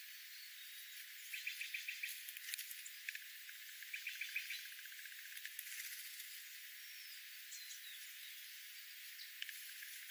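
Wild songbirds calling over a steady high hiss: a quick run of short repeated notes about a second in and again about four seconds in, scattered chirps, and a couple of falling whistles around seven seconds in.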